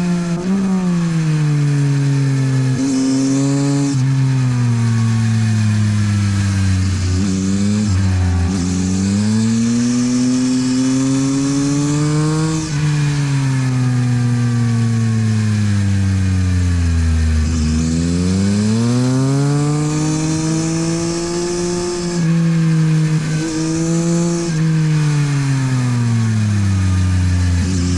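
Yamaha MT-09 SP's three-cylinder engine through a LeoVince exhaust, lapping a race track. The revs fall and climb again several times as the bike brakes into corners and accelerates out, under a steady rush of wind.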